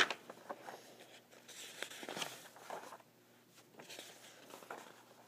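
Faint rustling of paper notes being handled, with a sharp click at the start and softer rustles in two short spells.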